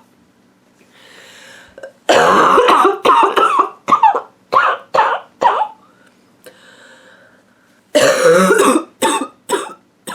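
A woman's barking cough, coming in two fits. Each fit is one long cough followed by a string of short coughs, with a breath drawn in before it. The first fit starts about two seconds in and the second about eight seconds in.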